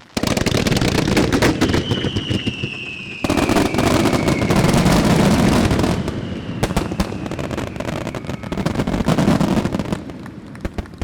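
Starmine fireworks barrage: a dense, rapid volley of launches and bursts that begins suddenly and dies down near the end. A high whistle slowly falling in pitch sounds through the first half.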